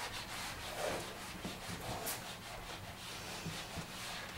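A whiteboard being written on with a dry-erase marker and wiped with an eraser: a faint run of short rubbing strokes.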